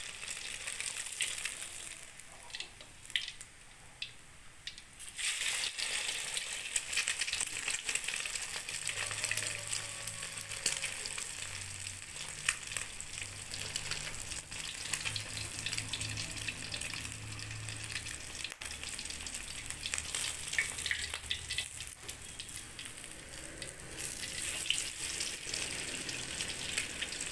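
Egg frying in hot oil in a wok: steady sizzling with crackling spatters, quieter for a few seconds near the start. A faint low hum runs underneath through the middle.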